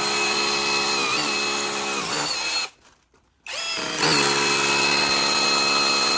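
Cordless 20V rotary hammer drill boring a small hole into a wall, its motor running at a steady pitch. It stops about two and a half seconds in, then starts again about a second later and runs on.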